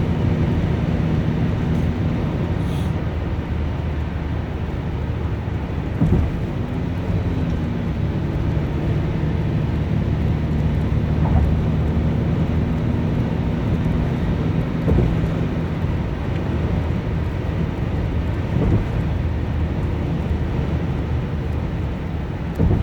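Mitsubishi Zinger running steadily with an even low engine hum and a few brief thumps, with no abnormal noise: the sound of the vehicle in normal condition.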